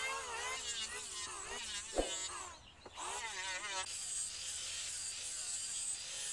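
Small angle grinder with a sanding disc running and abrading the edge of a pine board: a steady high whine with rasping noise that sets in about four seconds in. Before it, a wavering voice and a single sharp knock about two seconds in.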